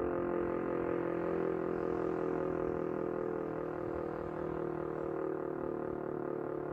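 DS977 electromechanical motor siren sounding a steady howling tone, close to the rotor, gradually getting a little quieter.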